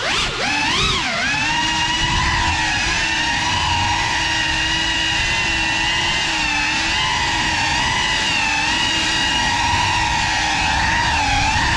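GEPRC FPV quadcopter's motors and propellers whining steadily in flight. The pitch swells and dips with the throttle about a second in and again near the end.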